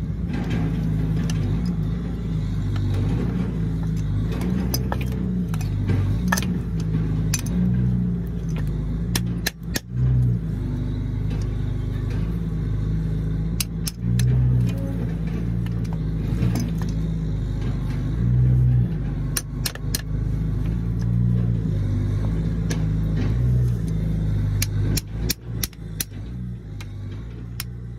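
Background music with a low bass line, overlaid by scattered sharp hammer strikes on the steel links of a manure spreader's webbing chain as they are pounded apart. The strikes come in quick clusters near the end.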